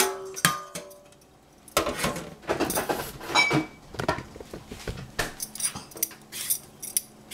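A stainless steel saucepan set down in a stainless sink rings briefly at the start. From about two seconds in, a metal vegetable peeler scrapes the skin off a cucumber in quick repeated strokes.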